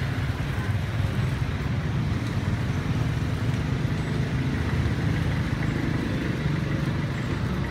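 Street traffic: a steady low engine rumble from passing vehicles.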